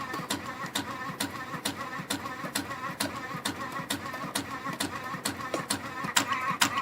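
CF-320 CNC spring coiling machine running, coiling 1.5 mm wire into compression springs: a steady mechanical hum with sharp clicks about twice a second.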